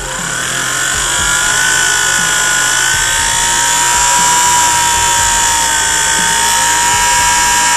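Homemade brushless DC motor with a tin-can outer rotor running with a high electric whine. The whine rises in pitch over about the first second and a half, then holds steady with slight pitch wander as the sensor is turned to find the angle of fastest rotation, since the sensor's tilt changes the motor's speed.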